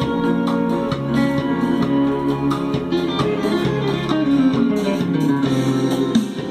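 Recorded song playing on the repaired Sony HCD-EX88 mini stereo: a guitar-led instrumental passage with plucked and strummed guitar.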